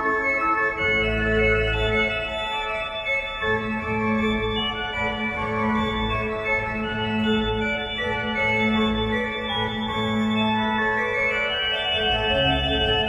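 Organ playing slow, sustained chords over a held bass, the chords changing every few seconds.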